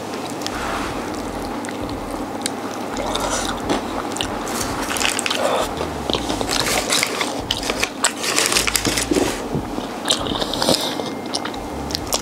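Close-miked chewing and crunching of crispy fried food, with irregular bites that get busier a few seconds in, over a steady low hum.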